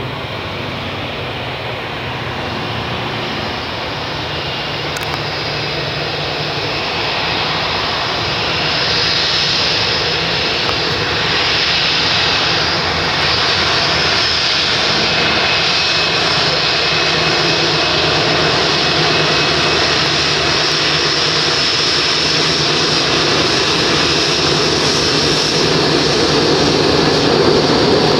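Boeing 787's twin Rolls-Royce Trent 1000 turbofan engines running at taxi power as the airliner taxis onto the runway for takeoff. A steady jet engine roar and whine that grows gradually louder as the plane comes closer and turns.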